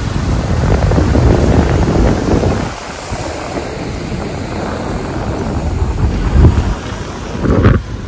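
Wind buffeting the microphone and rushing water as a vehicle drives through a fast stream running across a gravel road. The rumble eases about three seconds in, with a couple of louder thumps near the end.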